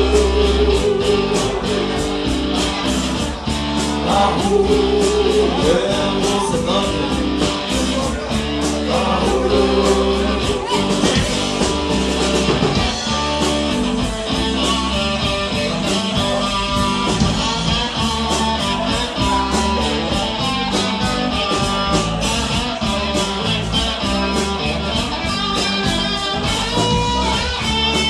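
Live rock band playing a passage with electric guitar leading over bass and a steady drum beat.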